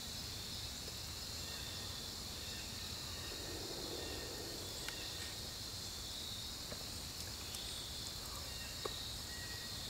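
Steady chorus of crickets, a continuous high trill, with a few faint ticks.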